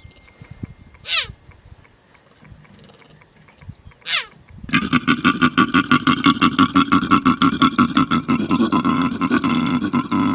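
Animal calls: two falling cries about three seconds apart, then a loud, fast pulsing call of about eight pulses a second from about five seconds in.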